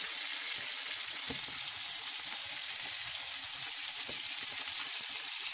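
Sate skewers of meat, bacon and onion sizzling steadily as they fry in oil in a frying pan, with a few faint clicks.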